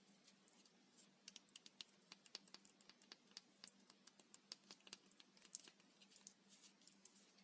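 Faint, rapid, crisp clicking and crackling of dry, puffed-up microwaved Dalan soap being crunched. The clicks begin about a second in and go on irregularly.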